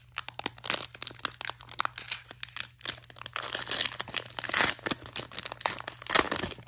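Foil wrapper of a Pokémon TCG Shining Fates booster pack crinkling and tearing as it is pulled open by hand: a run of crackles, with louder rips about four and a half and six seconds in.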